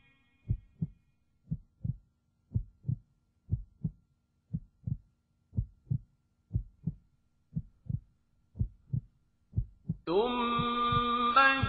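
Heartbeat sound effect: paired low thumps, lub-dub, repeating about once a second. Near the end a chanted recitation comes in over it.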